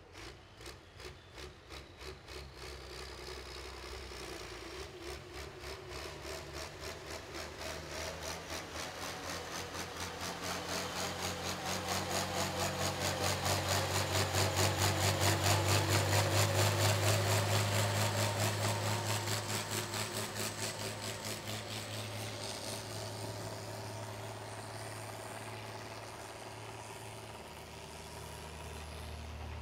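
A pulling truck's engine runs hard at full throttle while it drags the weight sled down the track, with a regular pulsing beat. It grows louder up to about the middle, then fades.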